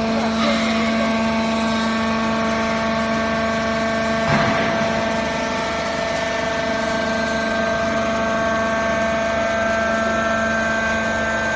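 Hydraulic foam baling press running: a steady machine hum with a fixed-pitch whine from the motor and pump, and a brief surge of noise about four seconds in.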